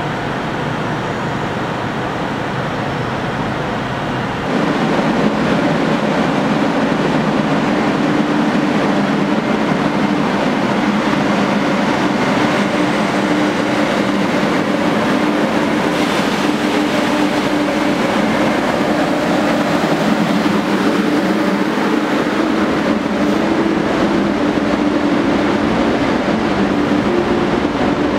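SJ X2000 electric tilting train moving slowly past along the platform. Its steady hum jumps louder about four and a half seconds in, as the power car reaches the microphone, with a held low tone while the carriages roll by.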